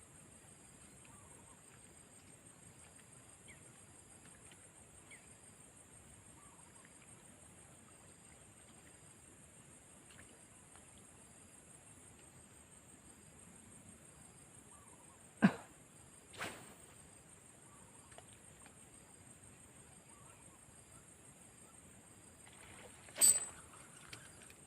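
Steady high-pitched chorus of insects. Two sharp clicks about a second apart just past the middle, and another sharp click near the end.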